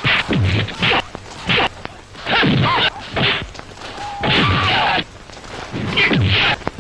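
A rapid series of stylised movie punch and kick sound effects, the classic 1980s Tamil-cinema karate hits: about eight blows, each a sharp hit with a falling tone and a swish.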